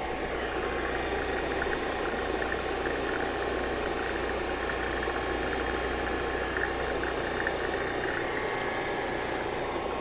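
Electric high-pressure washer's motor and plunger pump running steadily with a constant hum. The pump builds only about 100 bar instead of the 200 it should, which the repairer suspects is a faulty pressure regulator.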